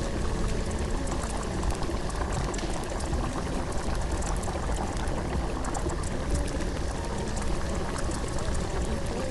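Steady rushing water sound with a fine crackle running through it.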